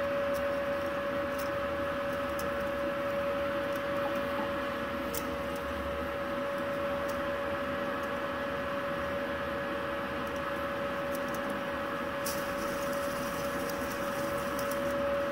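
Wire feed motor of a MIG-MAG 200G-SP welder running steadily with a constant whine, pushing gasless flux-core wire up through the torch cable toward the tip.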